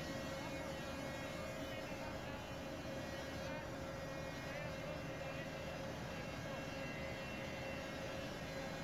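Heavy fuel oil purifier (centrifugal separator) running: a steady machinery hum with one held mid-pitched tone over a faint hiss.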